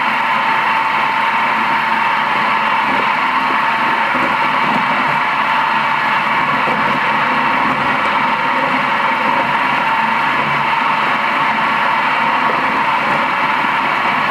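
Nagema bowl cutter running at a steady pace, its rotating knives chopping meat emulsion for gothaj sausage as cubes of fat are added to the turning bowl. The machine gives an even whir with a pronounced mid-pitched hum.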